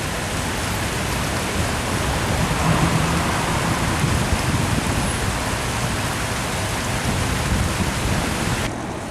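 A steady, even rushing noise with no distinct events in it. Near the end it drops abruptly to a quieter, duller hiss.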